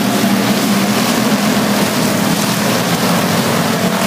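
A field of dirt-track stock cars racing past under green, many engines running together as one loud, steady drone.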